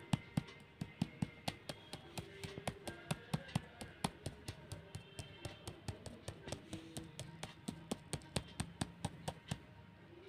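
Pen tip tapping on notebook paper in a quick series of sharp taps, about four a second, as short dots and dashes are drawn.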